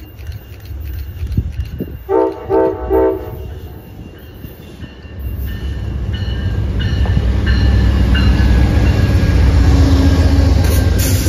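Amtrak P42DC diesel locomotive horn sounding three short blasts about two seconds in. Then the two locomotives and their passenger cars rumble past close by, growing louder toward the end.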